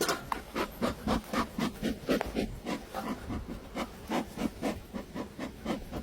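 Rapid rhythmic rubbing or scraping strokes, about four to five a second, with no break.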